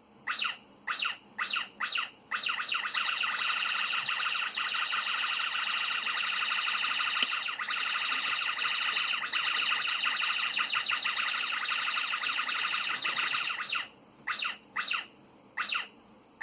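A pet bird squawking: a few separate sharp calls, then a long unbroken run of rapid repeated call notes for about eleven seconds, then separate squawks again near the end.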